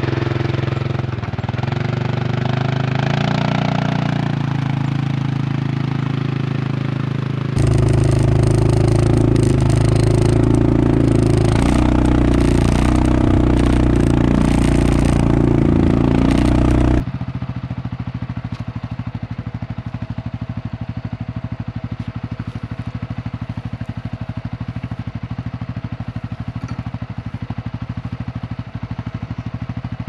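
A four-wheeler ATV engine runs as the ATV drags a wooden skid-mounted mineral feeder across the pasture on a tow strap. From about 7 s to 17 s it is louder, with clatter. Then it settles to a steadier, quieter running.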